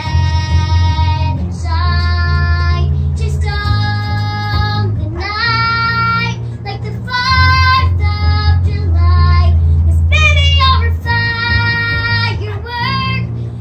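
A girl singing phrases of long held notes while playing an electric bass guitar, its low notes running steadily under her voice.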